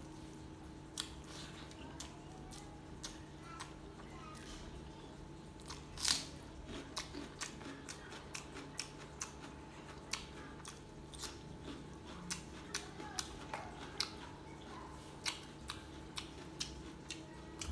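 A person chewing food eaten by hand, with wet mouth clicks and smacks at irregular intervals, over a faint steady hum.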